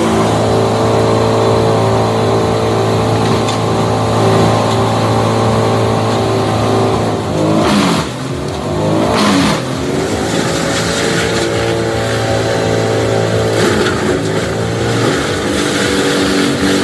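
Large engine of a whole-tree wood chipper running steadily. Its pitch dips and recovers twice near the middle, with short rough bursts as it takes load.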